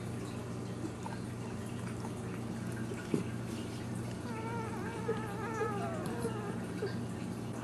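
A ten-day-old dachshund puppy whimpering: one high, wavering cry lasting a couple of seconds that slides downward at the end, over a steady low hum. A single sharp tap comes just before the cry.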